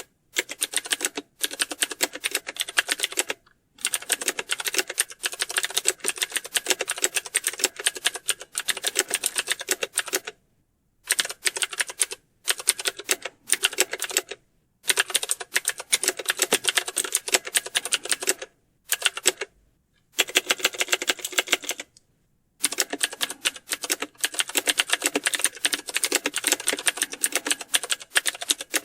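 Typing on a computer keyboard: rapid, continuous keystrokes in runs of several seconds, broken by short gaps of complete silence.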